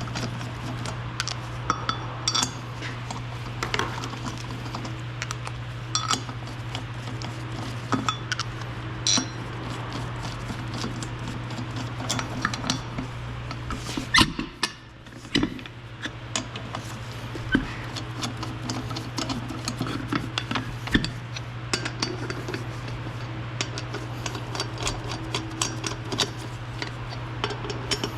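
Metal hand tools and brake parts clinking and tapping in irregular short knocks, over a steady low hum.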